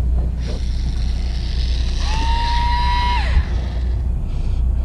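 Electric fishing reel's motor running briefly. A hiss starts under a second in; about two seconds in the motor's whine glides up, holds steady for about a second and drops away as it stops. A steady low rumble runs underneath.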